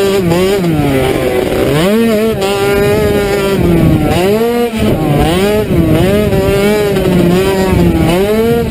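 Sport quad's engine revving hard on a dirt track, its pitch climbing and dropping again and again as the throttle opens and closes.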